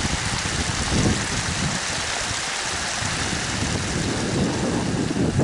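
Wind buffeting the microphone in low rumbling gusts over a steady rushing hiss.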